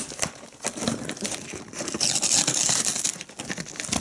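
Knife blade slicing through the packing tape and cardboard of a heavily taped parcel, a crackling, tearing sound with many small clicks and crinkles.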